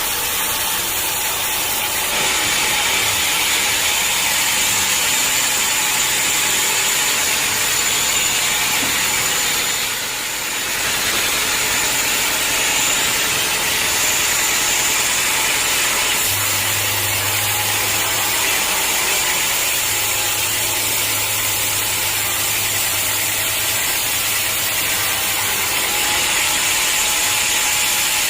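Sawmill saw running steadily through a hard acacia log, with a high whine throughout. The level dips briefly about ten seconds in, and a low hum joins from about sixteen to twenty-six seconds.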